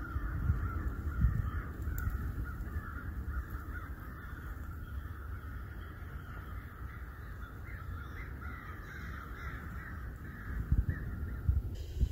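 A dense, unbroken chorus of many animals calling at once, one steady din that cuts off just before the end. A few low thumps come in over it during the last two seconds.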